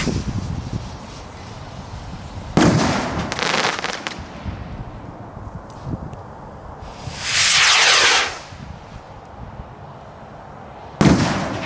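Zeus King Cobra 75 g firework rockets: a launch whoosh trailing off at the start, a sharp bang about two and a half seconds in followed by about a second of crackling, then a hissing whoosh of over a second as the next rocket goes up, and its burst as a sharp bang near the end.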